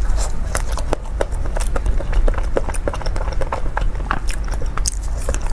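Close-up crunching and chewing of a pie's crisp shell: many irregular sharp crackles as it is bitten and chewed.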